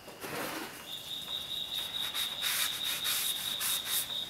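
A short hiss of aerosol brake cleaner, then a cloth rag rubbing the face of a new brake rotor in quick repeated strokes, wiping off grease. A thin steady high-pitched tone runs underneath from about a second in.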